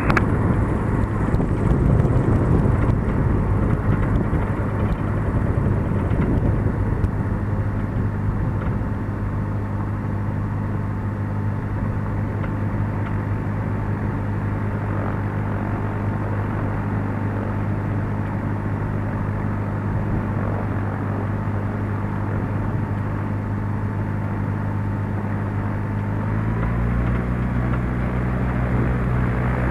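Cessna 172's piston engine and propeller running at low, steady power while taxiing, heard from the cockpit. About 26 seconds in, the engine speed steps up a little and holds.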